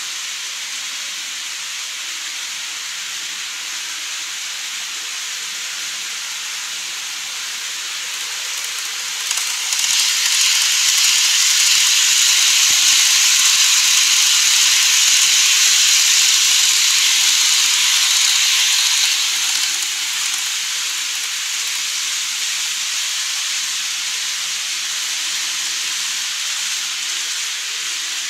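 TOMIX N-gauge Odakyu 4000 series model train running over a plastic truss bridge, its wheels and motor making a hissing whir. The sound swells about ten seconds in as the train passes close by and drops back to a steady hiss about twenty seconds in.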